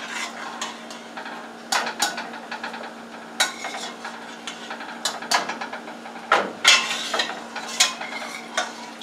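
A utensil knocking and scraping against the inside of a stainless-steel stockpot while chicken bones are fished out of the hot broth: irregular sharp clinks about every second, over a steady low hum.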